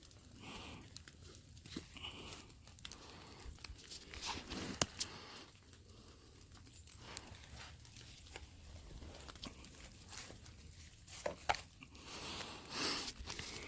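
Irregular rustling and crunching handled close by, with scattered sharp clicks.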